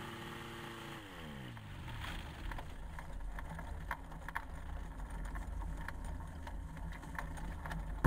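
Ultralight aircraft engine winding down: its steady pitched drone falls in pitch over about a second and stops, leaving a faint low rumble with scattered clicks until the sound cuts off abruptly.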